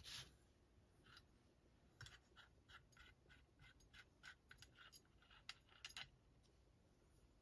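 Faint light ticks and scrapes of a pulley nut being spun off the threaded shaft of an alternator by hand.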